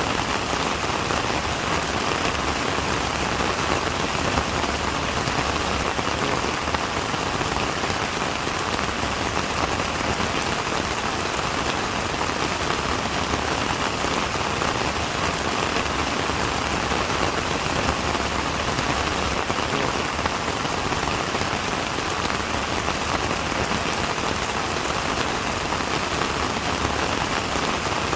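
Steady rain falling, an even hiss of many raindrops that keeps the same level throughout.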